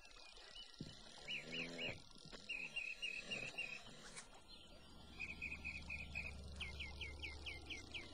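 Small birds calling in short runs of rapid chirps, the last run about seven quick falling notes. A low steady hum comes in about five seconds in, and a single sharp click sounds just past four seconds.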